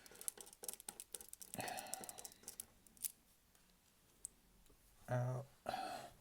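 Quick small clicks and taps of hand tools working on a smartphone's internal parts and tiny screws, thickest in the first three seconds. A short murmur of voice comes in near the end.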